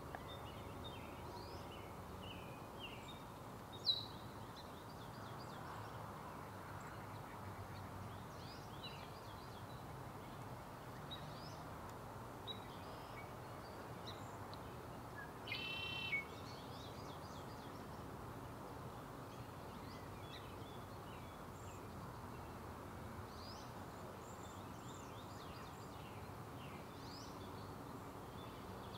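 Birds chirping and calling faintly over a steady low hiss. A sharp high chirp stands out about four seconds in, and a louder, short stuttering call comes a little past the middle.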